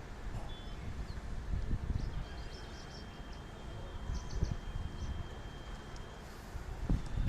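Outdoor ambience: an uneven low rumble that swells and falls, with a few faint bird chirps and a thin, steady high tone held for about four seconds in the middle.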